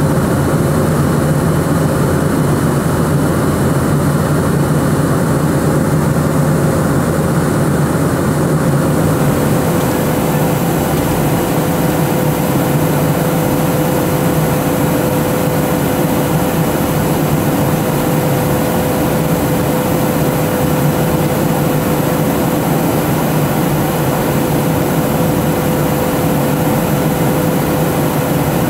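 Steady cabin noise of a Boeing 737 jet airliner in cruise: engine drone and airflow hiss with a faint steady tone. The hiss gets brighter about nine seconds in.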